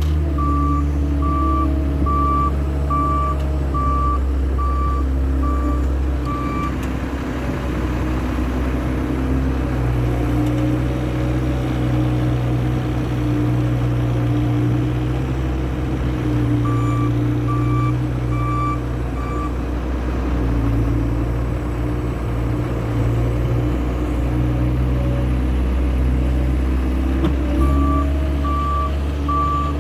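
Case skid steer loader's diesel engine running under load as it works, its pitch shifting as the throttle changes. Its back-up alarm beeps about once a second in three spells while it reverses: at the start, past the middle, and near the end.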